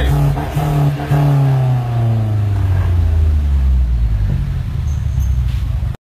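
Mercedes-Benz C300 (W205) turbocharged four-cylinder engine running through an Armytrix valvetronic exhaust. Its note eases down in pitch over the first few seconds after a rev, then holds steady.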